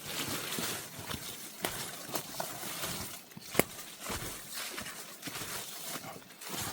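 Footsteps on a steep dirt forest path: an uneven scatter of scuffs and knocks, with one sharp click about three and a half seconds in.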